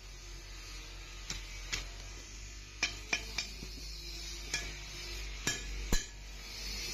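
Irregular sharp metallic clinks and taps, about eight of them, from hand work on an old MK3 kukri blade during its restoration.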